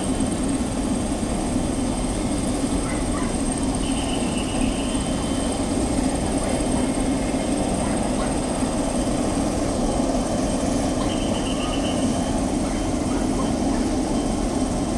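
Air-ambulance helicopter's turbine engines running on the ground: a loud, steady noise with a thin high whine over it. Short high trills come through twice, about four and eleven seconds in.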